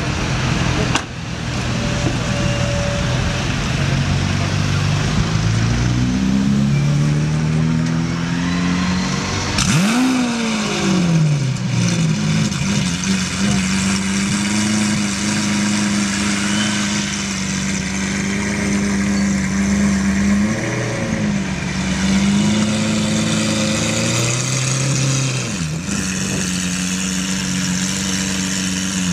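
Lamborghini Aventador's V12 engine running. Its pitch climbs over several seconds, then one sharp rev rises and falls about ten seconds in. After that it holds a steady note, broken twice by smaller revs.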